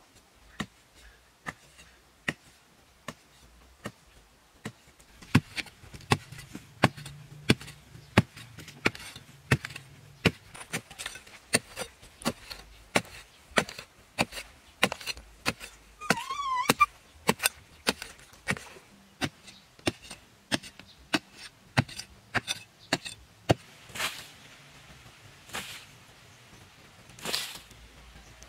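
A hand digging tool chopping into hard, dry soil in repeated sharp strikes, about two a second, with a few longer scrapes of loosened earth near the end.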